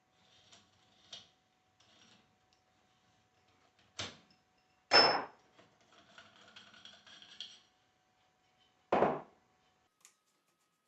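Hand tools and metal alternator parts being handled on a workbench: light clicks and scraping, with three sharp clanks about four, five and nine seconds in, the middle one loudest with a brief metallic ring.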